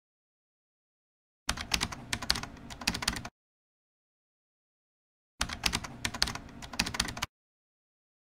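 Keyboard typing sound effect: two bursts of rapid key clicks, each about two seconds long, the first about a second and a half in and the second about four seconds later.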